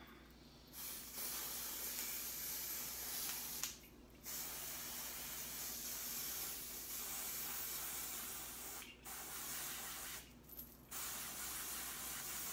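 Aerosol can of pink temporary hair-colour spray hissing onto hair in four long bursts, with short breaks between them.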